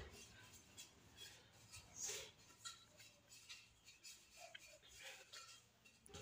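Faint, sparse light taps and soft rubbing of a hand greasing the inside of an aluminium sufuria with oil, with one slightly louder scrape about two seconds in.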